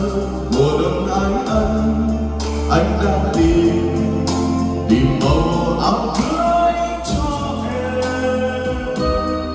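A man singing into a handheld microphone over a karaoke backing track, both played through Lx Acoustic line-array PA speakers with subwoofers. The bass notes are deep and sustained, and the voice moves through a melody.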